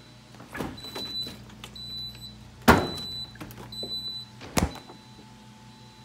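Kenmore Elite refrigerator's door alarm beeping: short high-pitched beeps about once a second that will not stop, because the door alarm is faulty. Two sharp knocks sound in between, the first one the loudest sound.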